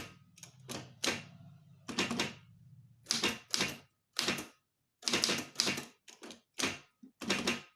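Typewriter keys being struck one at a time while typing figures and spaces: about fifteen sharp clacks at an uneven pace.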